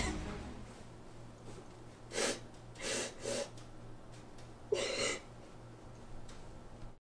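A woman crying with her face in her hands: four short, sharp sobbing breaths between about two and five seconds in, over a low steady hum. The sound cuts off near the end.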